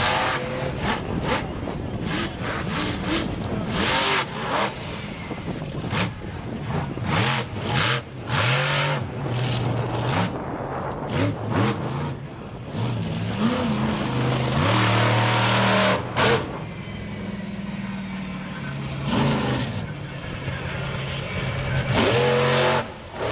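Lucas Oil Bigfoot monster truck's engine revving hard and easing off over and over as it drives its freestyle run, with repeated sudden loud knocks and bangs through it.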